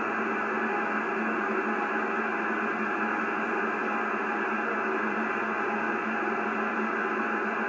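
Palstar R30A shortwave receiver in upper sideband on the 20 m band giving out steady static hiss, cut off above about 3 kHz and below about 200 Hz, with faint steady tones in the noise and no voice.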